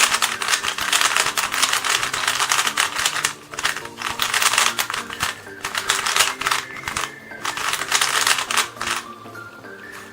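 MoYu TangLong 3x3 speed cube being turned fast: a dense, rapid clatter of plastic layers clicking, with short pauses about 3.5 and 7 seconds in and a quieter stretch near the end. Background music plays underneath.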